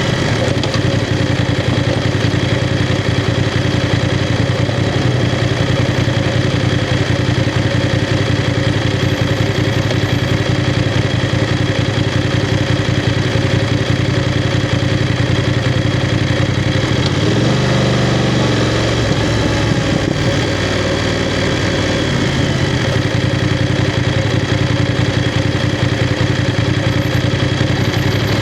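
BMW F 750 GS motorcycle's parallel-twin engine running at a steady, low engine speed. About two-thirds of the way through, the pitch dips briefly and then rises again before settling back to a steady note.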